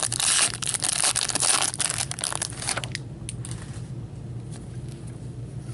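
Plastic-foil hockey card pack wrapper crinkling and being crumpled as the pack is handled and opened, dense crackling for about three seconds, then only a few light clicks of cards being handled.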